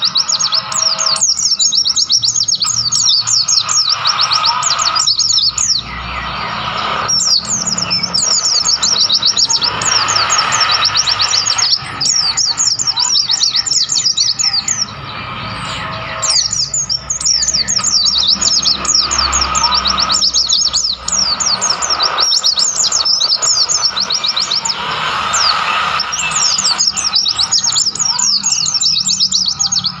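White-eyes (pleci) singing: fast, high-pitched chirping trills in bursts several seconds long, separated by short gaps.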